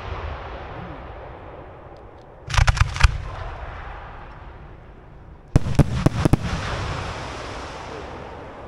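Aerial fireworks bursting: two volleys of several sharp cracks, about three seconds apart, each followed by a long rolling echo that slowly dies away.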